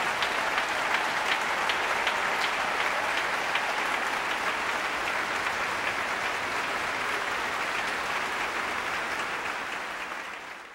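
A large congregation applauding in a cathedral nave: a steady, dense wash of clapping that fades out near the end.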